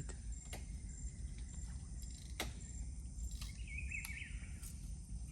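Low outdoor background noise with a faint high insect chirp repeating about twice a second, a few sharp clicks, and a short warbling bird call about three and a half seconds in.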